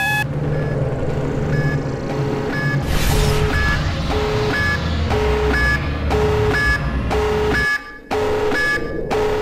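Sci-fi sound design: an electronic alarm beeping in two alternating pitches, high and low, about two beeps a second, over a heavy rumble that swells about three seconds in as a starship explodes. The sound dips briefly near the end.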